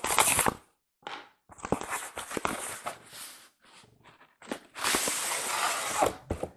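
Packaging rustling and scraping as a boxed model train car is handled and unwrapped, in three bouts with short pauses, the longest near the end.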